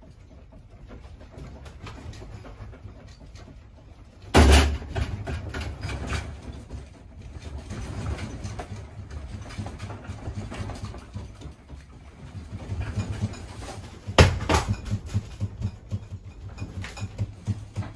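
Knocking and rattling in a small room over a low rumble, with two loud thumps, one about four seconds in and one near fourteen seconds in.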